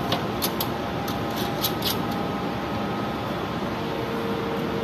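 A few short, sharp metallic clicks in the first two seconds as the knurled coupling nut of a metal circular cable connector is screwed onto its socket, over a steady background hiss. A faint steady hum comes in near the end.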